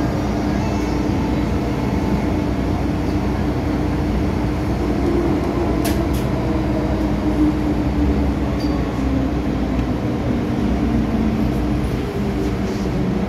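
Running noise heard inside the carriage of an MTR M-Train electric multiple unit moving through a station: a steady rumble of wheels and motors with a low wavering hum. A sharp click about six seconds in.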